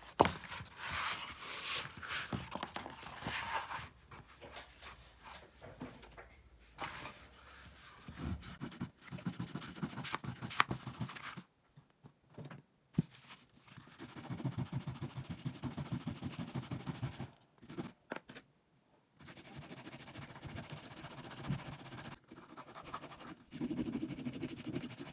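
Rubbing and scraping on leather: a green polishing-compound bar scrubbed back and forth on the rough side of a suede strop, then the steel tip of needle-nose pliers stroked on the charged leather to polish it. It comes in several stretches of rapid rubbing with short pauses, and a sharp knock at the start as something is set down.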